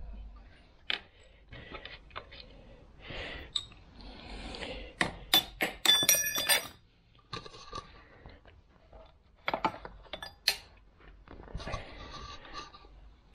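Spanner work on a bolt of a 2CV engine's alternator mounting: scattered metal clicks, clinks and short scrapes, with a bright ringing clink of metal about six seconds in.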